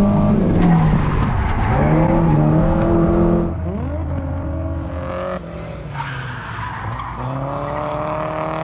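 Car engine revving up and down repeatedly, with its tyres squealing and skidding.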